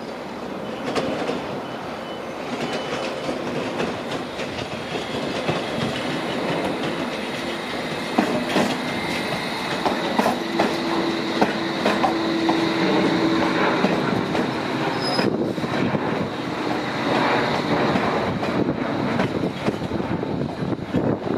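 A London Underground S7 Stock District line train rolling slowly over pointwork, its wheels clicking over the rail joints and crossings, with a steady whine over the rolling noise. The clicking is thickest about halfway through, as the cars pass close by.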